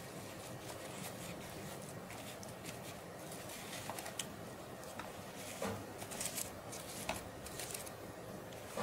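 A spatula pressing and scraping a sticky chocolate, biscuit and nut mixture flat in a steel cake tin: faint scraping and crackling, with a few sharper scratches in the second half.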